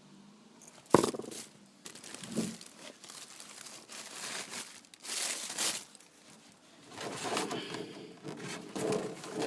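Packaging being handled, crinkling and tearing in several bursts, after a sharp knock about a second in.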